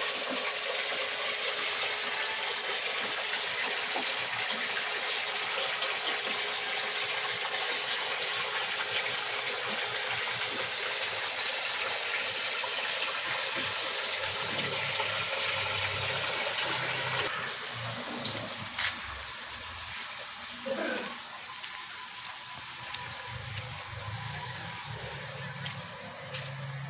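Steady rush of water running and splashing into a koi pond. About two-thirds of the way through it cuts off to a quieter background with a few sharp clicks and faint low sounds.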